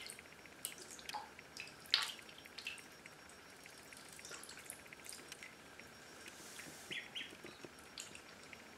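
Indian Runner ducklings paddling in shallow bathtub water: faint, scattered light splashes and drips, with two short peeps about seven seconds in.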